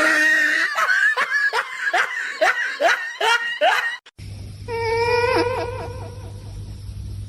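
A person laughing hard in a quick run of short bursts for about four seconds. After a sudden cut, a drawn-out, wavering call sounds over a steady low hum.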